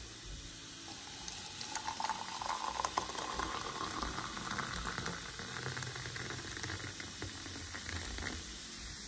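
Stain-remover and bleach powder fizzing and crackling in freshly boiled water, the activating reaction under way.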